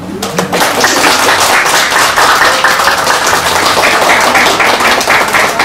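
Audience applauding: a roomful of people clapping, starting all at once and holding steady.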